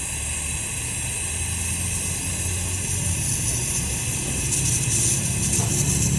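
A machine running with a steady low hum and a hiss; a rougher, louder high-pitched noise joins about four and a half seconds in.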